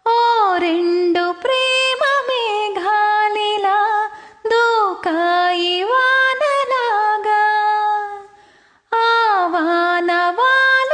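A woman's voice singing a melody unaccompanied, in long held and sliding phrases. The singing breaks off briefly about four seconds in, fades out near eight seconds and starts again just before nine.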